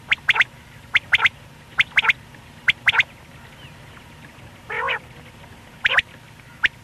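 Male common quail calling: short, sharp, high notes in quick groups of two or three, repeated about once a second, with one lower, rougher call about five seconds in.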